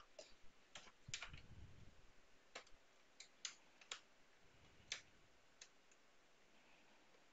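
Faint, sharp plastic clicks from the casing of a Huawei B315s-936 LTE router being pried open by hand, about eight scattered clicks in the first five seconds, with a low rumble of handling about a second in.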